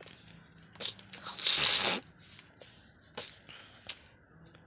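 A person spitting once, a short hissing spurt about a second and a half in, with a few small mouth clicks around it.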